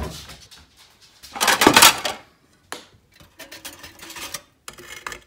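Kitchen handling sounds: a wooden cabinet door being opened, a loud rustle lasting under a second about a second and a half in, then light clicks and clatter as bread slices go into a toaster.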